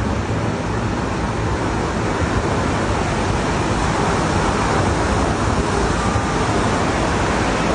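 Steady, loud rushing noise, strongest in the low end, with no distinct events.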